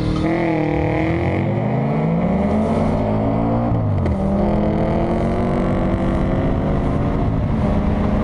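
Audi S8's 5.2-litre V10 accelerating hard: the engine note climbs for about four seconds, drops suddenly at an upshift, then climbs again through the next gear.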